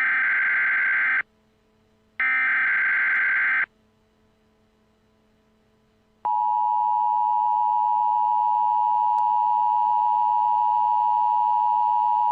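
Emergency Alert System SAME header tones: two digital data bursts, each about a second and a half long with a one-second gap. After a pause, the EAS attention signal, a steady two-tone alert tone, starts about six seconds in and holds.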